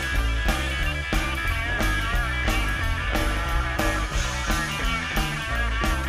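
Live rock band of electric guitar, electric bass and drum kit playing loud, driving rock and roll, the drums keeping a steady beat under the guitar chords.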